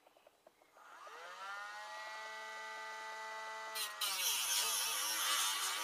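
Handheld electric rotary tool with a small disc spinning up about a second in and running with a steady high whine. About four seconds in the disc bites into the steel end of a Harley-Davidson Street 750 exhaust silencer, grinding at the weld that holds the baffle, and the motor's pitch drops under the load.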